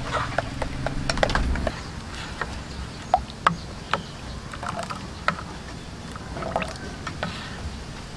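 Metal spoon stirring thin batter in a stainless steel bowl: wet sloshing with repeated clicks and taps of the spoon against the bowl, two sharper knocks a little after three seconds. A low hum underneath during the first second and a half.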